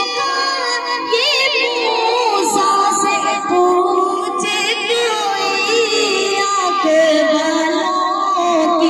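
A girl's voice singing a naat into a microphone, drawn-out wavering notes without a break.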